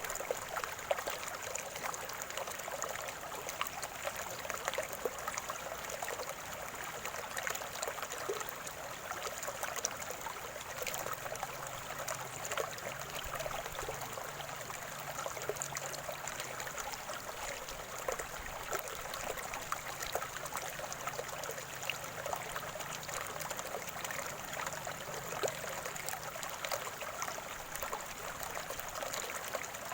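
Small stream of calm water gurgling and trickling steadily, with many small splashes in the flow.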